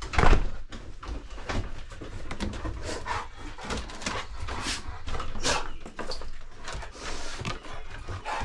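Dogs stirring, heard amid irregular rustles and clicks, with a sharp knock right at the start as the loudest sound.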